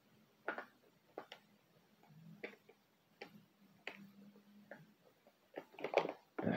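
Someone drinking from a plastic bottle of flavored water: soft, separate gulps and swallows with small clicks from the mouth and bottle, spaced out at first and coming closer together near the end.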